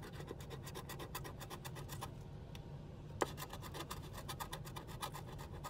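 Scratch-off lottery ticket being scraped with a scratching tool: rapid, repeated scraping strokes rubbing off the coating. The scraping pauses briefly about two seconds in, and a single sharp click follows before it resumes.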